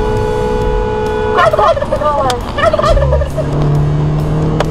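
A car horn blares on one steady chord, cut off about a second and a half in. A warbling turkey-gobble sound effect follows for about a second and a half. After it comes a steady low hum.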